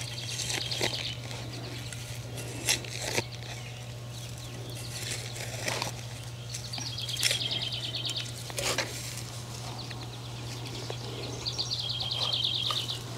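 A songbird singing a short, rapid trill three times, each about a second long. Between the trills come several sharp knocks and scrapes of a hand tool digging into garden soil, over a steady low hum.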